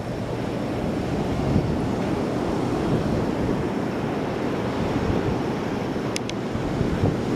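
Wind rushing over the microphone on top of the steady wash of surf breaking on the beach. Two brief high chirps come about six seconds in.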